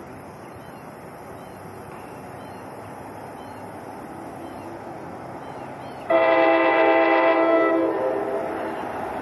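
An approaching NJ Transit train sounds one long multi-tone air horn blast about six seconds in, lasting a little under two seconds, before fading. Beforehand the train's low rumble grows slowly louder.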